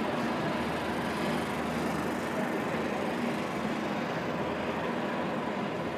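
Steady outdoor background noise, an even rushing hiss with a faint constant hum.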